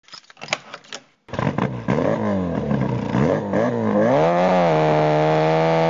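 A few clicks, then after a short pause an engine starts, is revved up and down several times, and about three-quarters of the way in is held at a steady speed.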